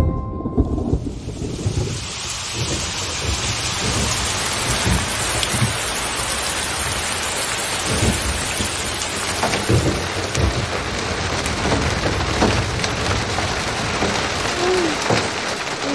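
Heavy rain falling steadily in a thunderstorm. A loud thunderclap sounds right at the start, and low rumbles of thunder follow in the middle.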